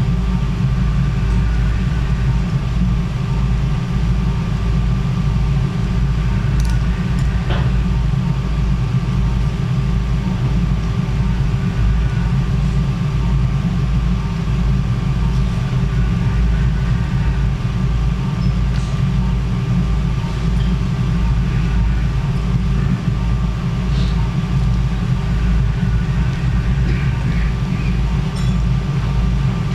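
Steady low rumbling hum of running machinery, unchanging throughout, with a faint constant tone above it and a few light clicks.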